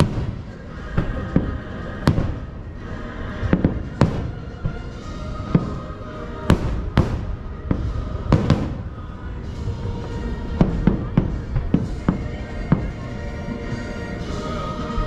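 Aerial fireworks shells bursting in an irregular run of sharp booms and cracks, thickest in the middle, with music playing steadily underneath.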